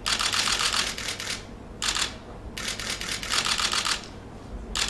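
Rapid clicking in four bursts: two lasting about a second each and two short ones near the middle and at the end.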